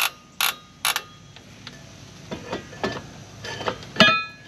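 Star-wheel adjuster of a Jeep TJ rear drum brake turned by hand, clicking three times about half a second apart as the brake shoes are spread. Light scraping and taps follow as the cast-iron brake drum is slid back over the shoes, and about four seconds in the drum clanks against the hub with a brief metallic ring.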